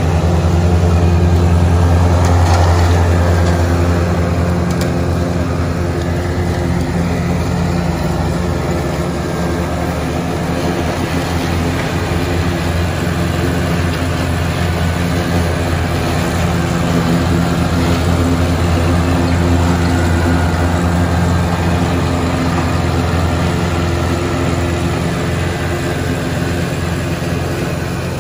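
John Deere 2025R compact tractor's three-cylinder diesel running steadily while it drives a rear-mounted Frontier GM1072 finish mower through grass.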